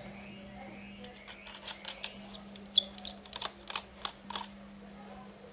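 Light, irregular clicks and taps of a screwdriver and small screws on a laptop's plastic case as its screws are taken out, over a steady low hum.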